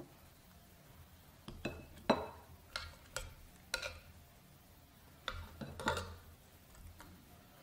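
Metal tongs clicking and clinking against a stainless steel skillet and a ceramic plate as sauced chicken wings are lifted out and set down: a run of sharp clicks in two groups, the second a few seconds after the first.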